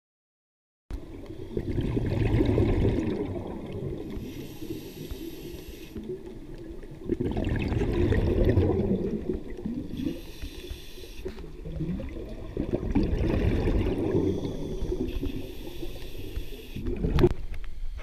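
Muffled water sloshing and bubbling as heard through an underwater camera. It begins about a second in and swells and fades roughly every five seconds, with a sharp click near the end.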